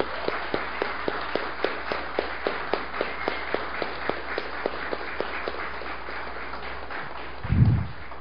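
An audience applauding, with louder single claps standing out about three times a second. The clapping fades near the end, and a short low thump follows.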